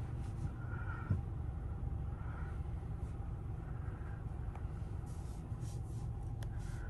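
Steady low rumble of a car idling, heard from inside the cabin, with a faint soft sound swelling about every second and a half and a few light ticks.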